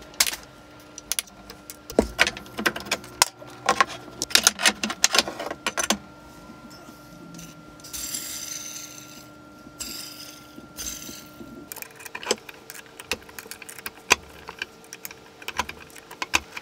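Metal tools and parts clinking and knocking as a ballscrew drive assembly is taken apart and the screw handled, with a few seconds of steady hiss about halfway through.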